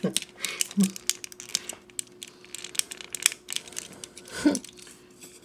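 Small plastic model-kit parts being handled and fitted: a run of light clicks and crinkling rustles. A brief vocal sound comes about four and a half seconds in.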